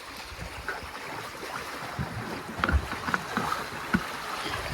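Scattered light knocks and clicks from handling the drain pipe of a hand-spun portable washing machine as it is fitted to the bottom, over a steady background hiss of wind and sea on a boat.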